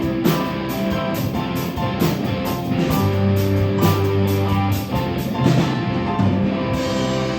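Rock band playing an instrumental passage: strummed guitar chords and held notes over a bass line, with a drum kit keeping a steady cymbal beat.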